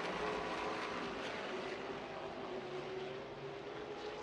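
A field of late model stock cars racing at speed, their V8 engines droning steadily together as the pack passes down the straightaway and into the turn.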